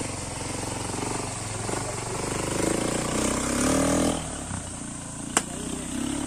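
ATV engine revving as the quad pulls away, the revs climbing for a second or so, then dropping off. A single sharp click follows a little later, and the engine picks up again near the end.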